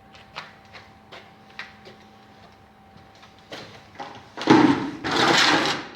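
Light scattered clicks and knocks, then a long loud scraping, rasping noise about two-thirds of the way in, from work at a Lego-brick press.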